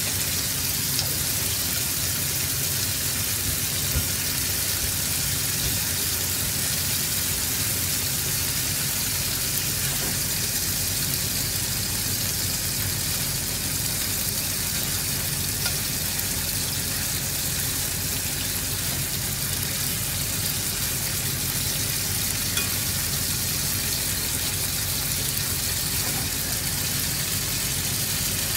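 Pork and chicken frying in a pan: a steady sizzle with a few faint pops.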